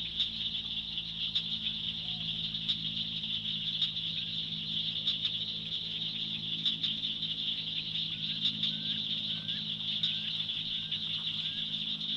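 Evening swamp chorus: a steady, dense high-pitched buzzing drone of insects, with a low steady drone beneath it. A run of about six short upswept chirps comes in over it about two-thirds of the way through.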